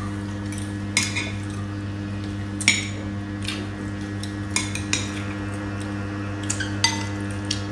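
Metal spoons and forks clinking and scraping against ceramic rice bowls as two people eat: sharp, irregular clinks with a brief ring, a handful of them louder, over a steady low hum.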